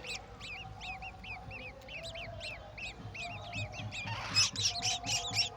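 Golden oriole nestlings begging: rapid, high, repeated chirping calls several times a second, swelling into a louder, harsher burst about four seconds in as food arrives.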